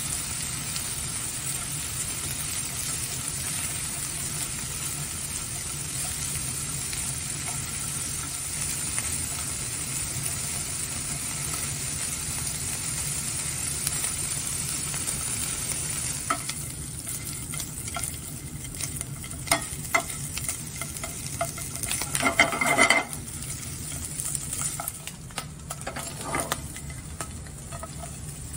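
Sliced kielbasa sizzling in a hot skillet, with metal tongs clicking and scraping against the pan as the slices are turned. About halfway through the sizzle drops and the tong clicks stand out, loudest a little past two-thirds in.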